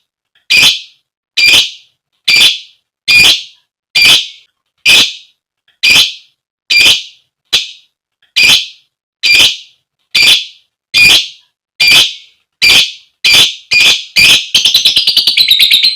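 Female lovebird giving loud, sharp single calls about once a second, the 'koek koek' call a female uses to call a male, breaking near the end into a fast rattling chatter (ngekek).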